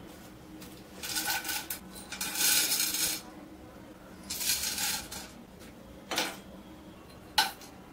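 Whole spices (black peppercorns, green cardamom pods, cloves) tipped from small glass bowls into a dry stainless steel pan, rattling and pattering onto the metal in about five short pours. The longest pour falls about two to three seconds in; the last two are brief.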